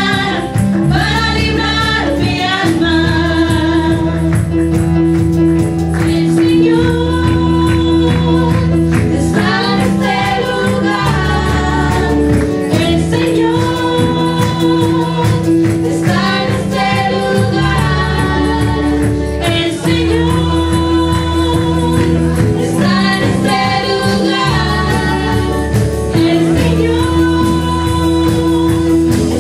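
Live Spanish-language worship song: several women's voices singing together into microphones over a keyboard accompaniment with a sustained bass line and a steady light percussion beat.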